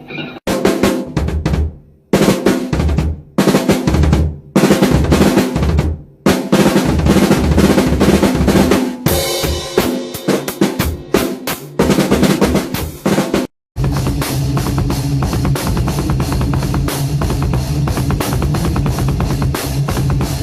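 Drum kit played in short bursts of fills and beats broken by brief stops, then, about two-thirds of the way through, a fast, steady, unbroken beat with rapid bass drum strokes.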